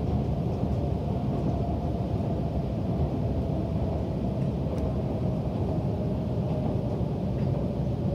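Diesel railcar running, heard from inside the passenger cabin: a steady rumble of engine and wheels on rail, with a faint whine that slowly drops a little in pitch.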